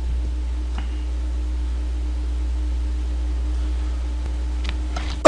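Steady low hum with a faint steady tone above it, and a few faint clicks from fingers handling the shell of a soy-sauce marinated crab.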